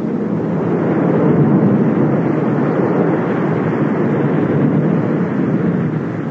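Thunderstorm sound effect: a long low roll of thunder that swells over the first second or so, holds, and begins to fade near the end.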